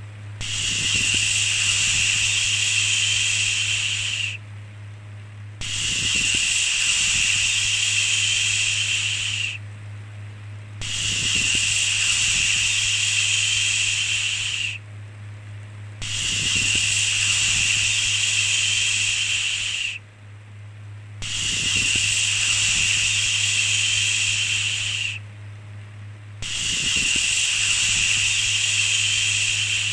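A long shushing 'shhh' sound, repeated six times, each about four seconds long with a pause of about a second between. A steady low hum runs underneath.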